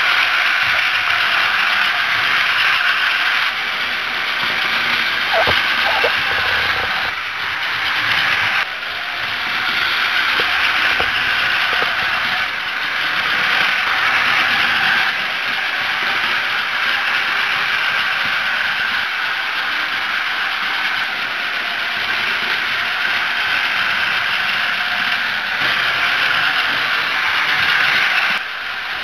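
Battery-powered Plarail toy shinkansen running on plastic track: the small geared motor and wheels give a steady, high whirring rattle. The sound changes abruptly several times, as the shots change.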